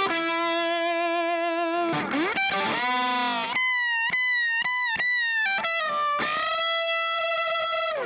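Electric guitar through a cranked JTM45-style valve head and a 2x12 cabinet with Celestion Creamback 75 speakers, no pedals, miked with a Shure 548: overdriven lead playing. Held notes carry vibrato, there is a slide up about two seconds in, then a run of short picked notes, ending on a long held note.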